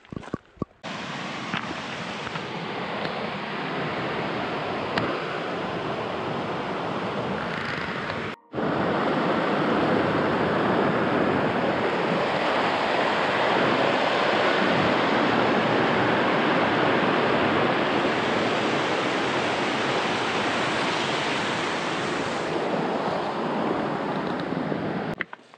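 Strong mountain wind blowing on the microphone: a loud, steady rushing noise that drops out briefly about a third of the way in and then comes back louder.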